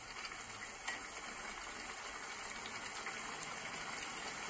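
Sliced matsutake mushrooms simmering and sizzling in fish sauce in a frying pan, a steady bubbling hiss. There is a light tap of the spatula about a second in.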